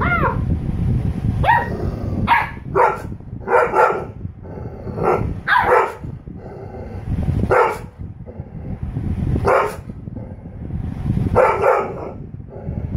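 A golden retriever and a husky puppy barking back and forth: about ten short barks and yips at irregular intervals, some sliding up or down in pitch.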